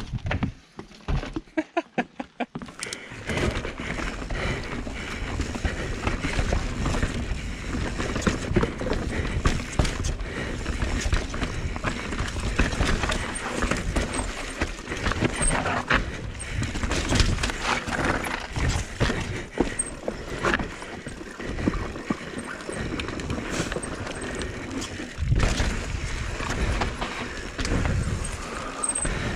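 Mountain bike tyres clattering over the slats of a wooden boardwalk in a fast, even run of clacks for the first couple of seconds. After that comes the steady rough rolling noise of a Norco Sight full-suspension mountain bike descending a rooty dirt trail: knobby tyres on dirt, the bike rattling, knocks over roots and wind on the microphone.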